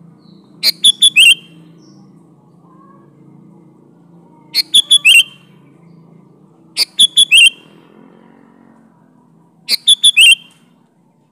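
Sooty-headed bulbul (kutilang) singing: four short, loud phrases a few seconds apart, each a quick run of four or five clipped notes ending in a slurred, falling note, over a faint low hum.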